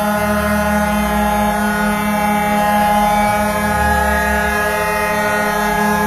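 Hockey arena goal horn, the Cincinnati Cyclones' horn in use since 2018, sounding one long steady blast with a low rumble underneath.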